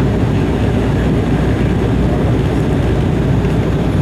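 Cabin noise inside an Embraer E190 on final approach: the GE CF34-10E turbofan engines and the air rushing past make a steady, low rumble.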